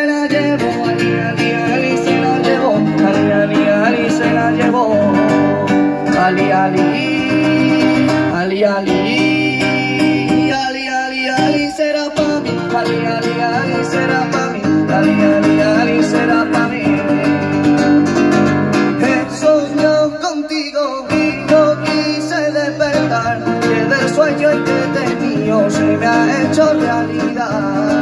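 Live band music through PA speakers: a strummed acoustic guitar with keyboard backing.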